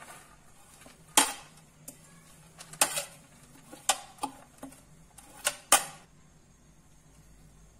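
Metal spoon scraping and clinking against white serving plates while pushing chopped herbs across them: a run of irregular sharp clinks that stops about six seconds in.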